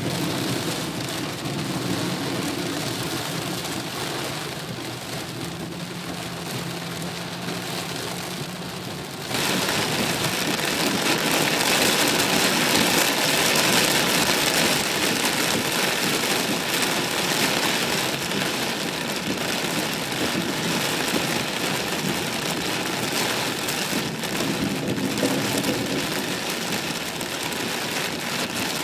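Heavy rain falling steadily, which suddenly gets much louder and harder about nine seconds in.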